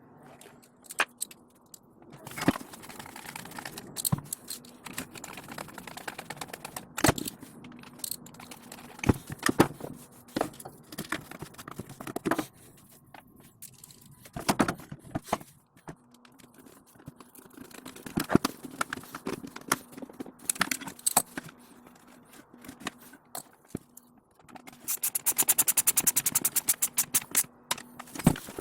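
Chainsaw parts and hand tools being handled during reassembly: scattered clicks and knocks of metal and plastic parts, with a fast, even run of clicks near the end.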